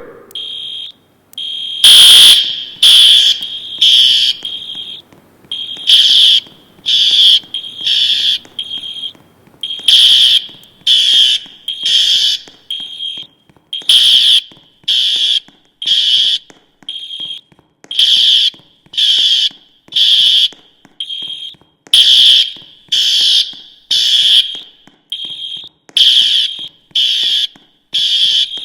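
School fire alarm sounding the temporal-three evacuation tone, loud: three high-pitched beeps about a second apart, then a pause, over and over, with fainter beeps in the gaps. This is the standard evacuation signal telling occupants to leave the building.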